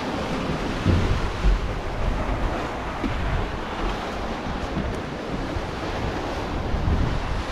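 Wind buffeting the microphone over the steady rush of open-ocean waves along a sailing catamaran's hull as it sails, with low gusty rumbles about a second in and again near the end.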